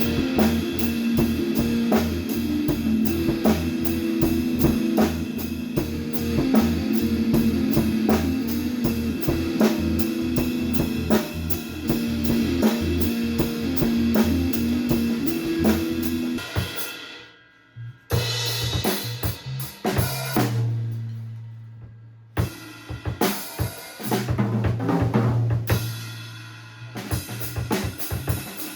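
Band rehearsal: drum kit with bass and guitar playing together to a steady beat. The full band stops about 16 seconds in. After that come separate low bass notes and scattered drum hits in short stretches.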